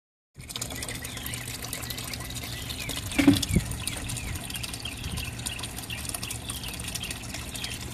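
Water pouring from a PVC pipe outlet into an aquaponics fish tank, a steady splashing trickle, with birds chirping throughout. A dull thump about three seconds in is the loudest moment.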